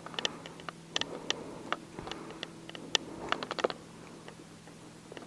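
Handling noise as a smallmouth bass is held and measured against a tape measure on concrete: scattered light clicks and taps, bunched in quick clusters about a second in and again after three seconds.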